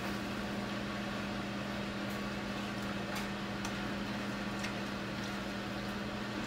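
Steady mechanical hum of a running appliance, with a constant low tone over a soft hiss and a few faint clicks.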